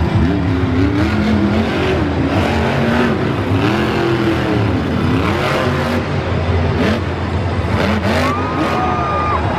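Monster truck's supercharged big-block V8 being revved up and down over and over, its pitch rising and falling. Near the end a higher-pitched whine joins in as the revs climb, while the truck goes up on its rear wheels in a wheelie.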